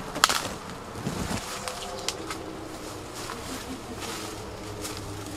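Footsteps through dry leaves, twigs and brush on a wooded forest floor, with a sharp snap shortly after the start and a few lighter cracks later, over a faint steady background hum.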